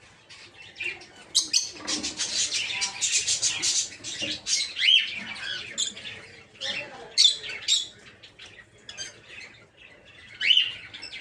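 A flock of peach-faced lovebirds chirping and squawking in short, sharp, high-pitched calls. A dense run of rapid chatter comes about two seconds in, and a couple of rising shrieks follow later.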